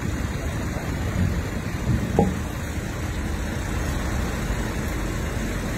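A heavy vehicle's engine running steadily with a low rumble, with a brief louder knock about two seconds in.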